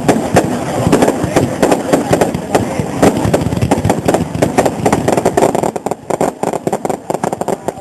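Fireworks going off in a rapid, dense run of crackles and bangs, thinning to more scattered bangs over the last couple of seconds.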